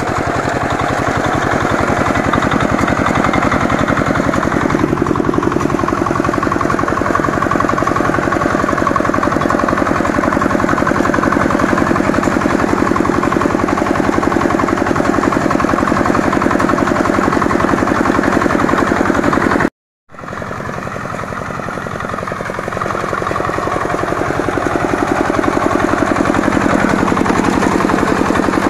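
Walk-behind power reaper's engine running steadily under load as the machine cuts rice, with a fast, even firing rhythm. The sound breaks off for a split second about two-thirds of the way through, then returns quieter and builds up again near the end.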